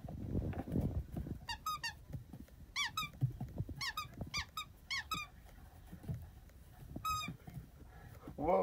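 A puppy chewing a rubber banana squeaky toy: several sharp, high squeaks in short runs, the last about seven seconds in, with low bumping noise in the first second.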